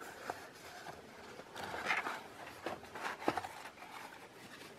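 Faint rustling and a few light taps and scrapes of hands handling a handmade paper-covered box.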